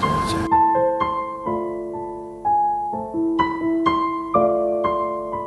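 Slow, soft piano music: single notes and chords struck about once or twice a second, each ringing on and fading. It starts about half a second in, as the room sound of the preceding interview cuts off.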